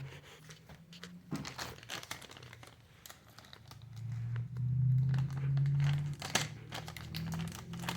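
Crinkling and rustling of plastic packaging with small clicks as the part is handled. A louder low hum, shifting in pitch, comes in about halfway and fades about two seconds later.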